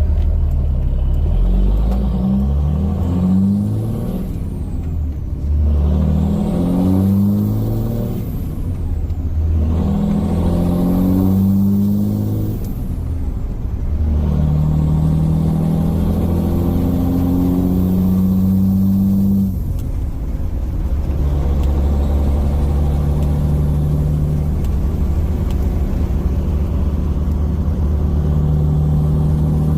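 5.9 Cummins diesel in a Ram 3500 pulling through the gears of its manual gearbox, heard from inside the cab. The engine note climbs and drops back several times as it shifts, then settles into a steady drone. A faint high turbo whistle rises and falls with the revs through the first dozen seconds.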